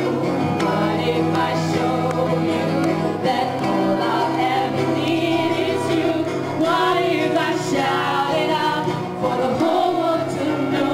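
Music with several voices singing together over steady held low notes.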